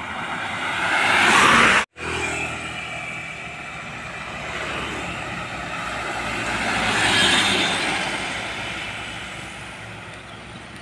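Road traffic passing close by: a car rushes past, loudest about a second and a half in, and cuts off abruptly. Then a light diesel truck drives past, swelling to its loudest around seven seconds in and fading as it moves away.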